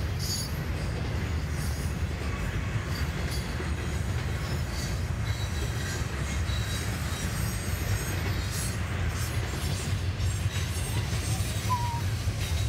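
Double-stack intermodal freight cars rolling steadily past: a continuous low rumble of wheels on rail with intermittent thin, high wheel squeals. A few short chirps come in near the end.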